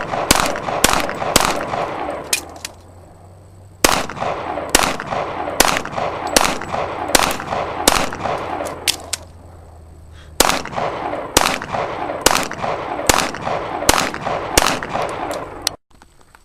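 Pistol shots fired in rapid strings, roughly one shot a second. There are three strings of several shots each, with short pauses between them, and each shot rings out with an echo.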